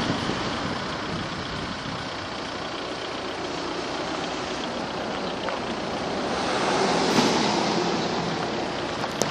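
Road noise inside a moving car: steady tyre and engine noise, swelling briefly about seven seconds in as another vehicle passes close by.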